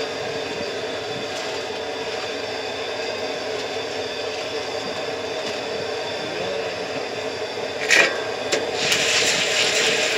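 Gas burner running steadily under a large steel kettle-corn kettle. About eight seconds in there is a sharp knock, and then a louder hissing scrape as a wooden paddle stirs the popcorn kernels through the hot oil.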